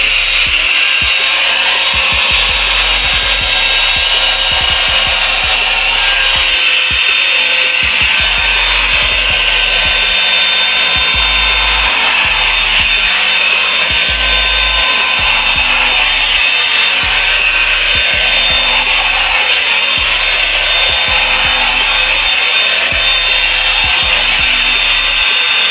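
Revlon brush blow dryer running steadily at close range: a loud rushing hiss of air with a thin high whine from its motor, as the round brush head is worked through hair.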